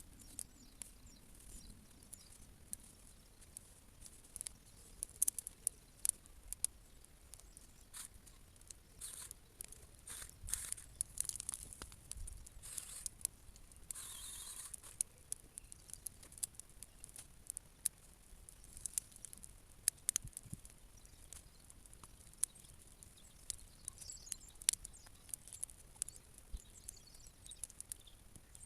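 Bonfire of old timber decking and branches crackling, with sharp pops at irregular intervals and a hiss of about a second roughly halfway through.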